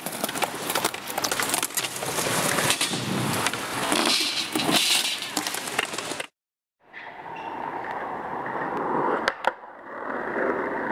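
Skateboard wheels rolling on concrete, with sharp clacks of the board. The sound drops out for a moment about six seconds in, then a quieter roll follows with two sharp clacks near the end.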